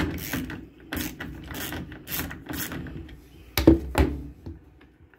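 Hands and tools working on a washing machine's water inlet valve: a run of short rasping scrapes about every half second, then two knocks about three and a half seconds in.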